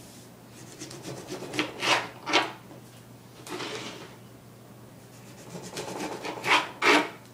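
Small kitchen knife sawing through the peel and flesh of an orange with short back-and-forth strokes, in a group about a second and a half in and another near the end, with softer handling in between.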